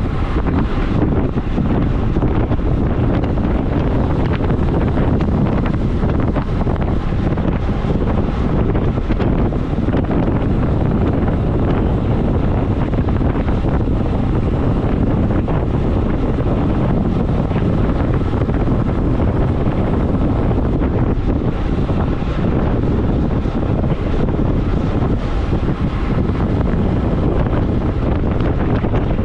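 Steady, loud wind rushing over the microphone of a camera on a road bike descending at about 57 km/h.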